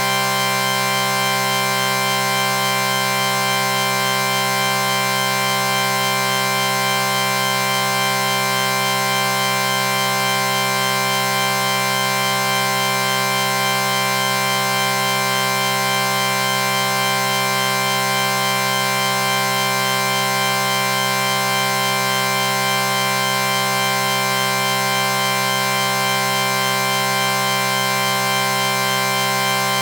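A sustained chord sound effect: many tones held together at a constant level, with no change in pitch or loudness.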